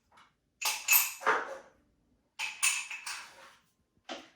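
Small crystals clinking against each other and a cup as they are handled, in two short bursts of clatter with a brief glassy ring.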